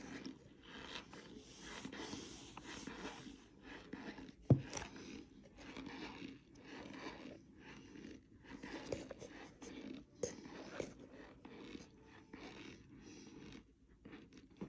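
Powder being crunched and scraped in a series of short strokes, with one sharp knock about four and a half seconds in.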